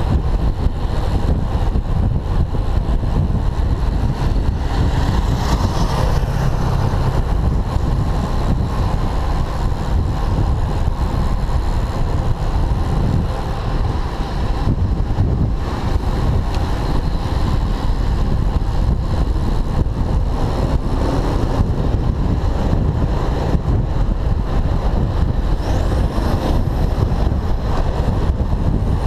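Steady rush of wind on the microphone of a camera riding on a road bike, mixed with city traffic noise from cars and motorbikes.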